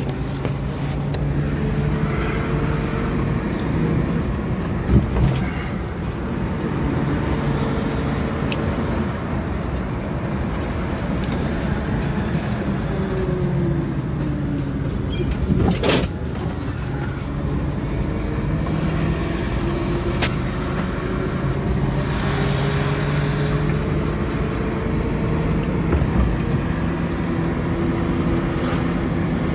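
Car engine and road noise while driving, the engine note slowly rising and falling with speed, with one sharp click about halfway through.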